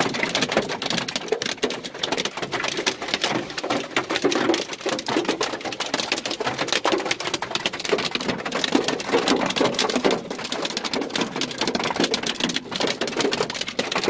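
Hailstones pelting a car's roof, windows and body, a dense, unbroken clatter of rapid impacts heard from inside the cabin.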